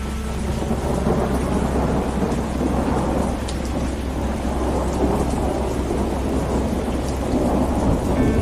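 Steady rain falling, with a low, continuous rumble of thunder underneath.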